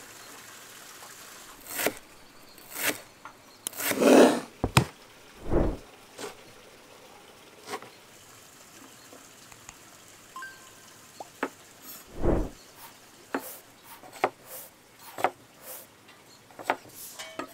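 Irregular knocks and clatters of kitchen work as food is prepared, with utensils and ingredients being handled. The loudest is a longer clatter about four seconds in.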